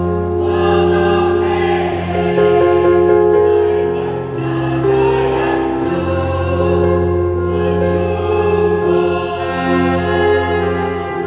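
Church choir singing the responsorial psalm in long held notes over a steady low accompaniment.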